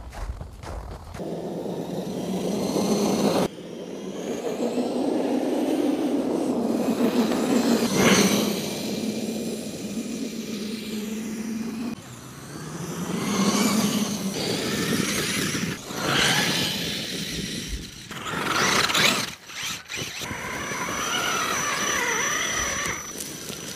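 Radio-controlled truck driving through snow: its motor and drivetrain whine rising and falling with the throttle over the crunch and churn of the tyres. The sound changes abruptly several times.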